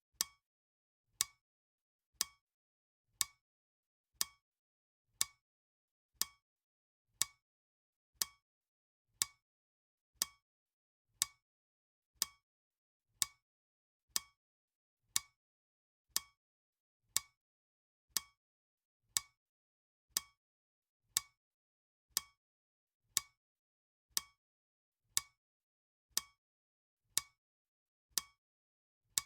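Clock-style tick sound of a countdown timer: one short, sharp tick each second, perfectly regular.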